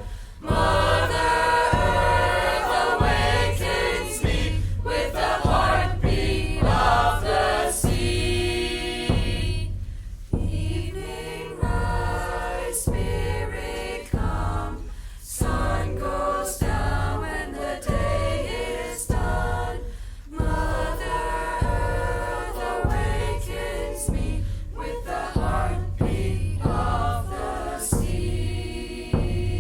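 Choir singing a chant-like song live, accompanied by a band with a steady, pulsing bass beat.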